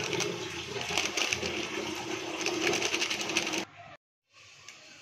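Spice powder shaken out of a cardboard box into a steel bowl: a dense rustle with many quick taps over a steady hum. It cuts off abruptly about three and a half seconds in, and a much fainter steady hiss follows after a brief gap.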